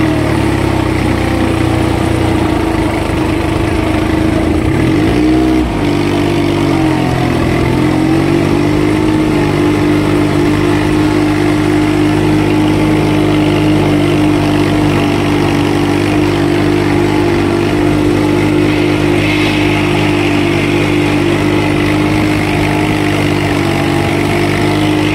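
Mitsubishi 4×4 mini tractor's engine running steadily under load as it works through flooded paddy mud; its pitch dips briefly about five to seven seconds in, then holds steady.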